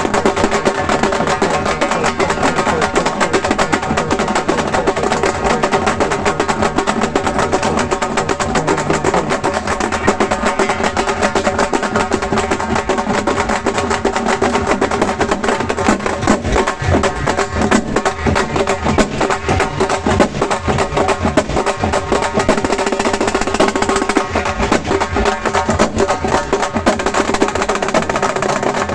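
A halgi ensemble, several Maharashtrian frame drums struck with sticks, playing a loud, fast, continuous rhythm.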